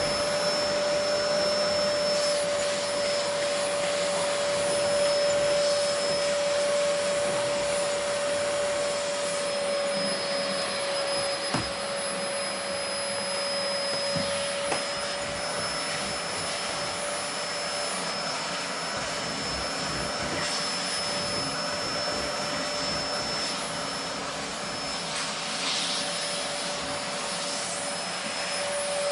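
Vacuum cleaner running steadily, a continuous rushing noise with a steady whine through it.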